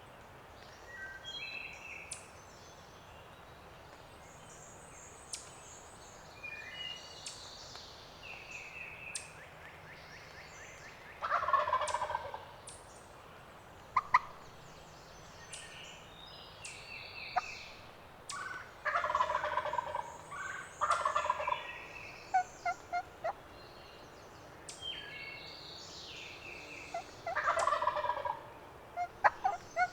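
Wild turkey gobbler gobbling four times, each a loud rattling gobble several seconds apart, with songbirds singing and chirping between them.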